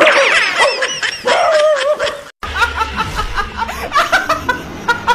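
High, wavering cries for about two seconds, then, after a short break, a woman laughing hard in quick, repeated peals.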